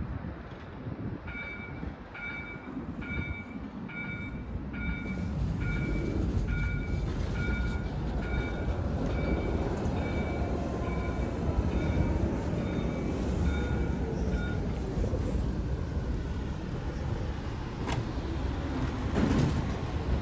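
Tram pulling into a stop: a low rumble of wheels and motors that grows as it nears, with a faint gliding whine. For the first dozen or so seconds a short electronic warning beep repeats a little faster than once a second, and there are a couple of sharp clicks near the end.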